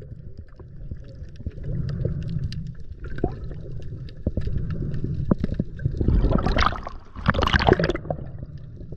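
Water heard through a camera submerged at night: a low underwater rumble with scattered small clicks and crackles, and two louder bubbling gushes about six and seven and a half seconds in.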